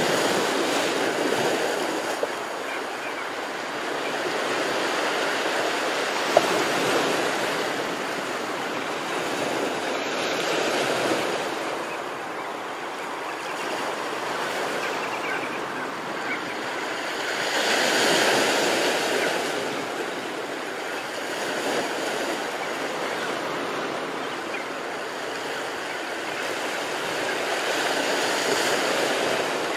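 Ocean surf washing onto a sandy, rocky shore, swelling and fading in slow surges every several seconds, with one brief click about six seconds in.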